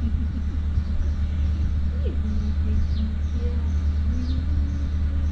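Steady low outdoor rumble, with a few faint, short bird chirps about three and four seconds in.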